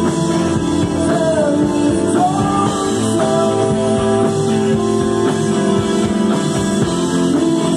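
Live rock band playing electric guitars, bass, keyboard and drums, with a sung vocal line over them.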